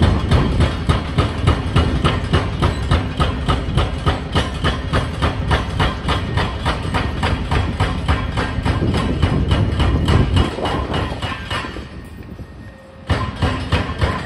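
Rapid, regular hammering, about four blows a second, typical of an excavator's hydraulic breaker pounding concrete, with the machine's engine underneath. The blows fade out, stop for about a second near the end, then start again suddenly.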